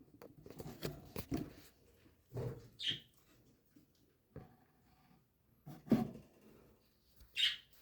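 Cockatiels stirring in their nest: scuffling and knocks, with two short, harsh, high-pitched cries a few seconds apart.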